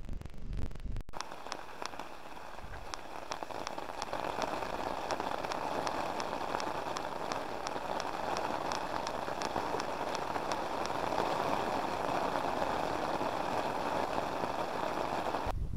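Heavy rain falling on a fishing umbrella canopy and the river, a steady dense hiss that starts about a second in and stops abruptly near the end. A faint regular tapping, about two to three ticks a second, runs through the middle of it.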